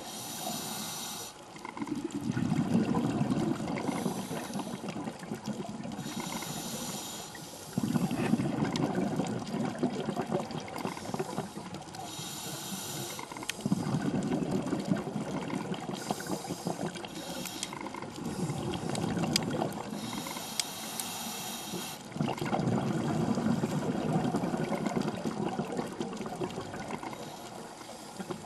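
Scuba diver breathing through a regulator underwater: a short hissing inhale every four to six seconds, each followed by a few seconds of bubbling exhaust, louder than the inhale.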